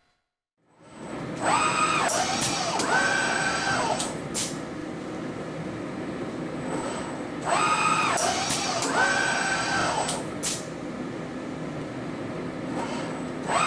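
KUKA KR 6-2 industrial robot arm's drive motors whining, rising and falling in pitch as the arm swings through a dart throw. This repeats about every six seconds, with a sharp click about a second after each swing, over a steady machine hum.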